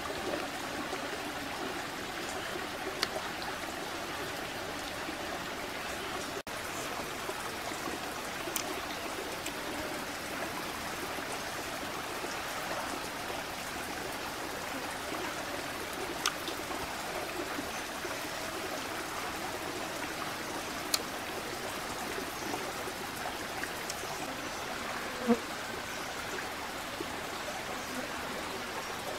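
Shallow stream running over rocks, a steady rush of water, with a few short sharp clicks scattered through it.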